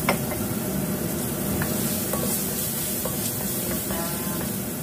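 Chopped spring onion and aromatics sizzling in a hot stainless steel wok, stirred and scraped round with a wooden spatula, with a sharp knock right at the start and a few lighter knocks later.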